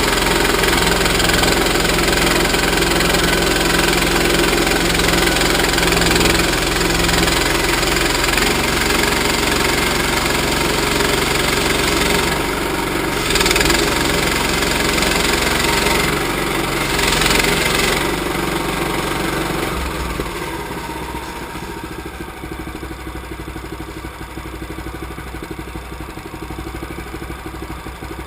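Portable band sawmill's gasoline engine running steadily as the mill cuts a log. The sound drops off noticeably about twenty seconds in and stays lower after that.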